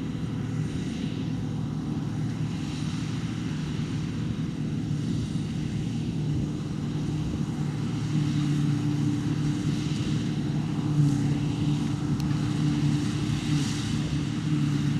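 John Deere 2264 combine harvester running steadily while cutting spring barley, its engine and threshing gear giving a continuous hum. The hum grows a little louder and fuller about eight seconds in.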